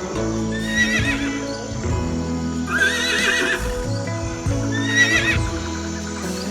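A horse whinnying three times, each a quavering high call, the middle one longest, over background music with sustained notes.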